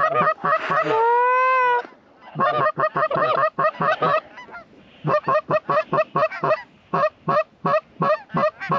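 Goose calls blown hard to bring in a flock of lesser Canada geese: fast runs of clucks, about five a second, with one long drawn honk about a second in and a brief lull a little past the middle.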